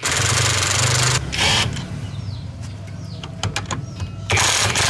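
Impact wrench rattling in bursts on the bolts of a rear-axle differential housing: a long burst at the start, a short one after about a second and a half, scattered clicks, then another long burst near the end.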